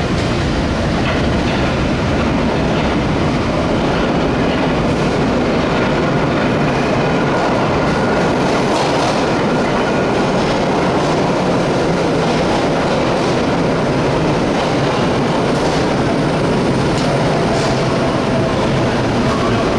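Vintage IRT low-voltage (Lo-V) subway cars moving through an underground station: a steady, loud rumble of steel wheels on the rails, with a faint high wheel squeal at times.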